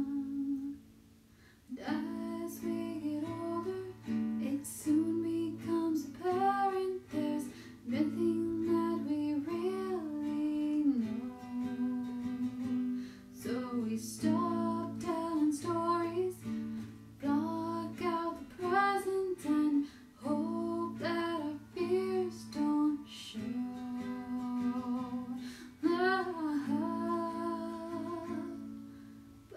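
A song: a voice singing a slow melody over acoustic guitar, after a brief pause about a second in.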